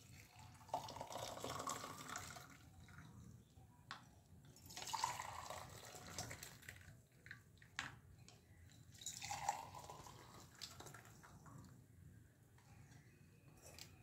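Hot herbal soup poured from a pot through a plastic strainer into glass tumblers: three separate pours splashing and trickling into the glasses, with a few sharp clicks between them.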